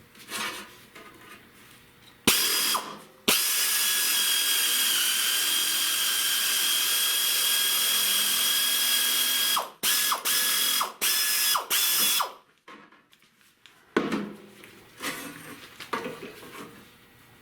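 A power cutting tool running through sheet metal: a steady high-pitched whine with hiss for about six seconds, then several short bursts as the trigger is pulsed, followed by quieter scraping and handling noise.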